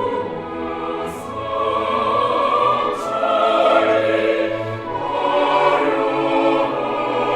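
Slow classical-style orchestral music with a singing voice holding long notes.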